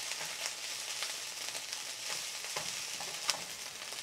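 Fried rice with egg sizzling in a hot stainless steel frying pan, with a wooden spatula scraping and clicking against the pan as the rice is stirred and broken up; a sharper click about three seconds in.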